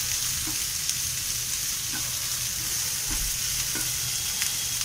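Chopped onions, green capsicum and tomatoes sizzling steadily in oil and butter in a frying pan. A spatula stirs them, giving a few light scrapes and taps.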